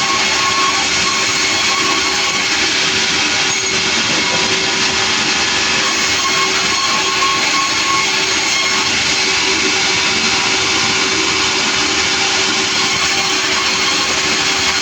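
Sawmill running loudly and steadily, a dense unbroken mechanical noise with a constant hum underneath.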